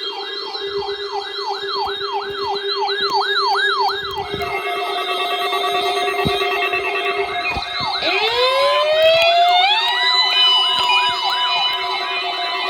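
Several electronic alarm sirens sounding together: a fast rising-and-falling yelp repeating about three times a second over a steady tone, joined about eight seconds in by a siren that winds up in pitch and then holds. These are alert alarms set off by a weather radio test signal.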